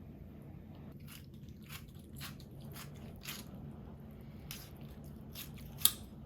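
Someone biting and chewing something crisp: a series of short, irregular crunches, with one sharper crunch near the end.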